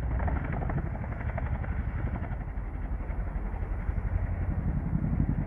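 Boeing CH-47 Chinook tandem-rotor helicopter in flight, its rotor blades beating in a steady, rapid pulse over the engine noise.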